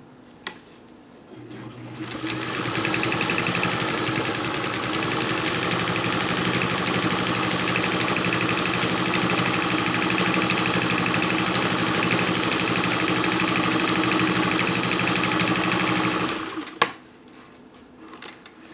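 Vintage Atlas electric sewing machine running at a steady speed, stitching through eight layers of denim. It winds up over the first second or so, runs evenly for about fourteen seconds, then stops with a sharp click, followed by a few faint clicks.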